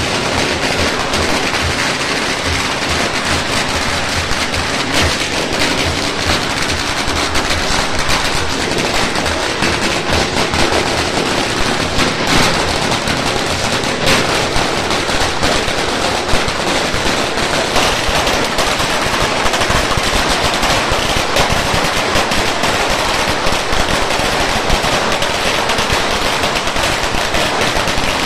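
A long string of firecrackers going off in a continuous rapid crackle, set off to mark a deity's departure in procession.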